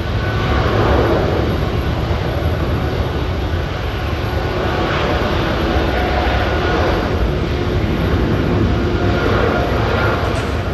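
Boeing 777-300ER's GE90-115B turbofans at takeoff thrust: a loud, steady jet roar as the airliner climbs out.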